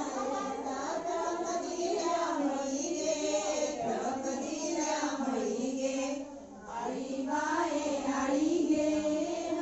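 A chorus of women singing a Dhalo, a Goan folk song, together in a steady, chant-like melody. There is a brief drop about six seconds in, between sung lines.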